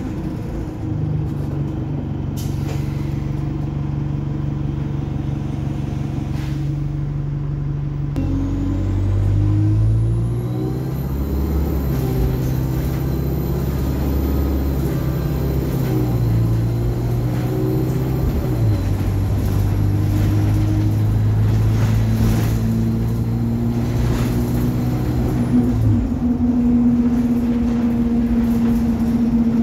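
ADL Enviro 200 single-deck bus heard from on board, its diesel engine and gearbox running under way. The engine note steps through a series of gear changes as the bus pulls away, then holds steady and rises again near the end, with a few short hisses of air.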